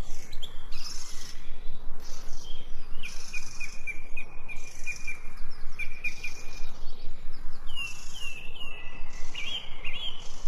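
Wild birds singing: a run of quick repeated chirps in the middle, then a few down-slurred whistled notes near the end, with high hissing bursts that come and go throughout.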